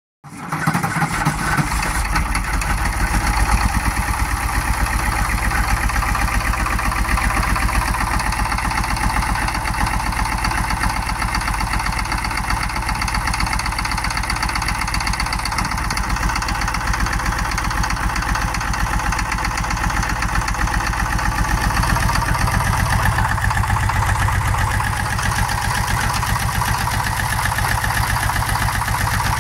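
International UD-236 diesel engine in a road grader, running steadily at idle. Its low, deep part grows fuller about two-thirds of the way in, as it is heard close to the open engine bay.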